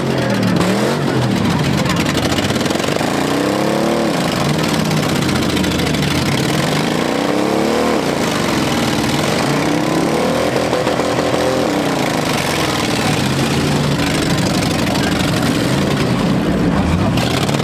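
Demolition-derby pickup truck engines revving, rising and falling in pitch several times over a steady din of running engines.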